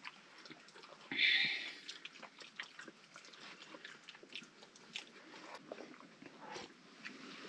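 People eating soup from bowls with spoons: scattered small clicks of spoons and chewing, with one brief loud hiss about a second in.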